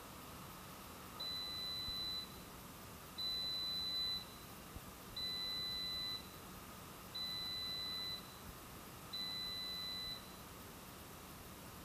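Chiwawa CAF-606 air fryer's end-of-timer alarm: five long electronic beeps, each about a second long and two seconds apart. The beeps signal that the cooking time has run out.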